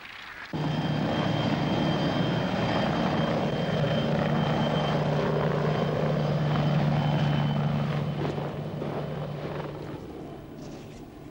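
An engine running steadily with a thin high whine above it. It cuts in abruptly about half a second in and eases off over the last few seconds.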